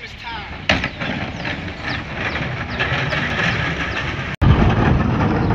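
Diesel engine of a Mack LE rear-loader garbage truck running, with a recycling cart banging against the McNeilus hopper about a second in, then metallic clatter and thin squeaks. The sound drops out for an instant past four seconds, and the engine is louder and deeper after that.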